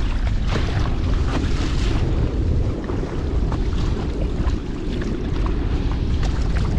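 Strong headwind buffeting the microphone in a steady heavy rumble, over choppy sea slapping and splashing against a kayak and its paddle in short irregular splashes.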